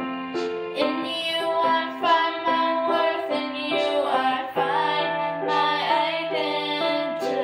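A woman singing a melody, holding and bending her notes, to her own digital piano accompaniment, which plays a steady repeating pattern of broken chords.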